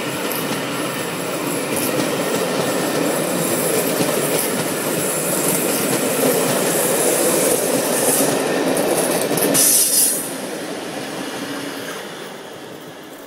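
Passenger coaches of a departing train rolling past on the rails, with steady wheel and rail noise. It is loudest about ten seconds in, then drops and fades as the end of the train goes by.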